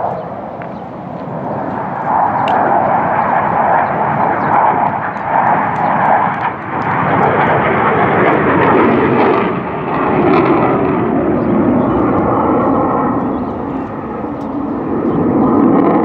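Military jet aircraft flying overhead: loud, continuous jet engine noise that swells and eases but never stops, its pitch shifting lower about halfway through as the jets pass.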